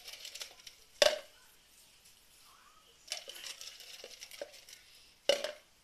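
Kitchen dishes and utensils clinking: two sharp clinks with a short ring, about a second in and again near the end, with lighter tapping and scraping between.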